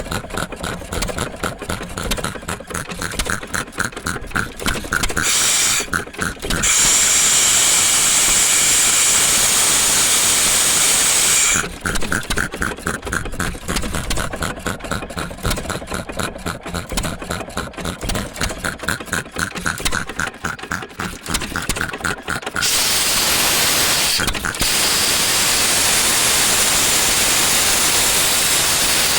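1916 Associated 2-1/4 HP hit-and-miss engine and air compressor unit running with quick, regular strokes. Twice, about five seconds in and again near the end, a loud steady rush of air takes over for several seconds.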